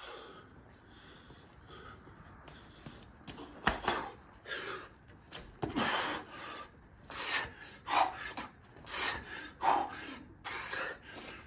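A man breathing hard through a set of burpees: heavy, forceful exhalations and grunts that start about four seconds in and come roughly once a second, getting louder. A sharp thud near the start of the hard breathing.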